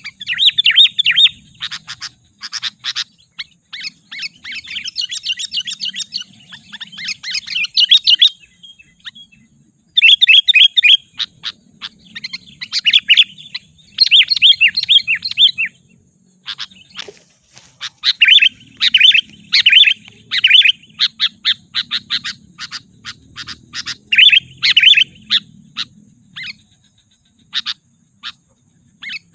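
Sooty-headed bulbul (kutilang) singing: runs of rapid, bright chattering notes in phrases a second or more long, broken by short pauses, with only scattered notes near the end.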